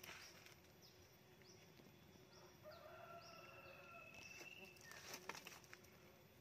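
Faint rooster crowing once in the distance, one drawn-out call about three seconds in. Before it a small bird repeats short falling chirps, and a few light clicks follow.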